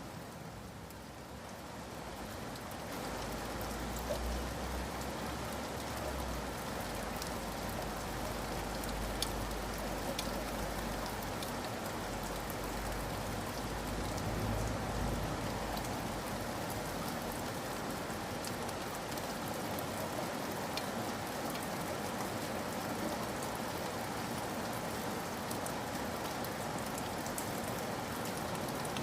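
Steady rain falling, an even hiss with scattered drop ticks. A low rumble runs under it through the first half.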